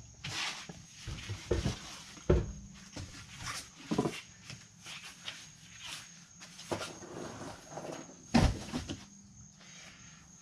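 Rear wheel of a Mercedes ML430 being worked off its hub and moved away: scattered knocks and thumps with shuffling, the two heaviest thumps about two seconds in and again about eight seconds in.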